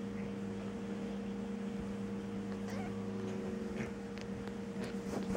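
A steady low hum at an even level, with a few faint clicks and rustles over it.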